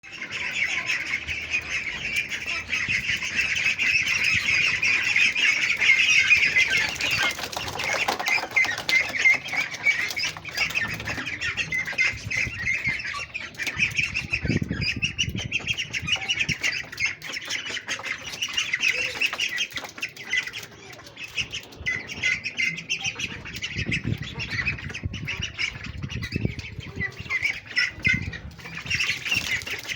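A group of ducklings peeping continuously, many high-pitched calls overlapping in a dense chatter, with a few low rumbles about halfway through and again near the end.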